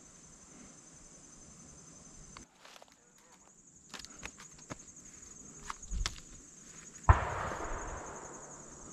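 Footsteps through dry leaves and brush, then about seven seconds in a single gunshot goes off, its echo dying away through the woods over about two seconds.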